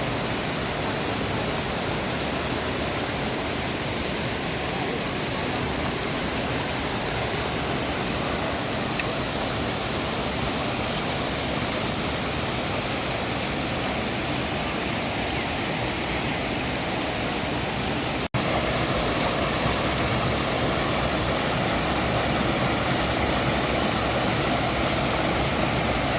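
Rushing water of a forest stream, a steady full hiss. It breaks off for an instant about eighteen seconds in and comes back a little louder.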